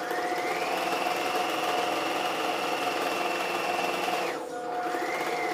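Brother electric sewing machine stitching fabric: the motor whine rises as it speeds up, runs steadily for about four seconds, stops, then comes back in a short burst near the end.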